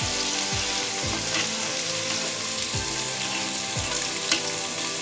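Shrimp and spice paste sizzling in a pot as it is cooked down with a little water, with a metal spatula stirring and now and then clicking against the pan.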